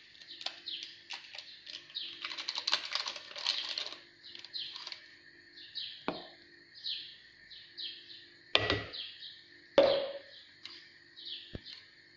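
A small bird chirps over and over in short, high, falling notes, about two or three a second. About two seconds in there is a stretch of paper rustling as a baking-powder sachet is handled. A few sharp knocks follow later, the loudest two near the end.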